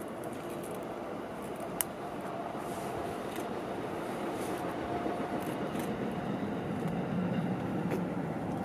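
Bus running, a steady rumble that grows a little louder toward the end, with a few sharp clicks.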